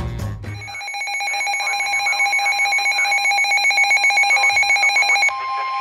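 Music cuts off in the first second, and an emergency alert tone begins: a buzzing, rapidly pulsing electronic tone for about five seconds, then, near the end, an abrupt switch to the steady two-tone Emergency Alert System attention signal.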